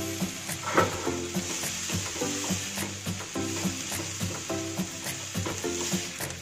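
Sliced greens sizzling in a non-stick wok while a plastic spatula stirs and turns them, with scraping and light taps and one sharper knock about a second in; the greens are being stir-fried until they just begin to wilt. Background music plays underneath.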